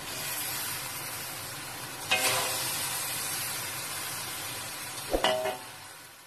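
Hot wok of stir-fried scallops and broccoli in sauce sizzling steadily as it is scooped onto a plate, with the spatula striking the wok with a short ringing clank about two seconds in and again about five seconds in. The sizzle fades near the end.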